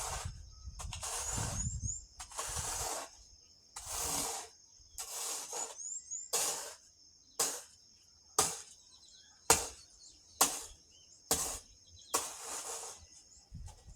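Gravel and ballast being scraped together into a pile in repeated strokes, about one a second. Several strokes in the middle are short, sharp scrapes.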